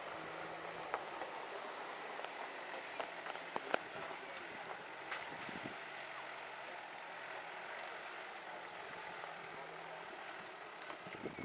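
Toyota 4x4 engine running faintly at low revs as it crawls over rough dirt, under a steady hiss, with a few sharp clicks from stones and gear.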